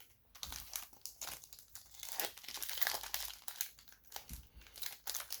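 Trading-card pack wrapper being torn open and crinkled by hand, a dense crackle of foil-plastic that starts about a third of a second in.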